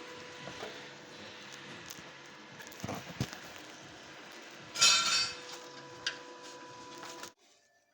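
Metal tools clinking and rattling over a steady workshop hum, with a louder metallic clatter about five seconds in; the sound cuts off abruptly near the end.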